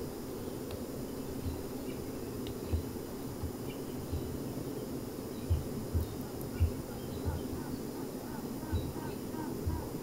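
BeeWeaver honey bee colony humming steadily in an observation hive. From about six seconds in, a queen pipes a run of short repeated notes, about three a second, which in a crowded colony signals rival queens ahead of a swarm. A few low thumps stand out above the hum.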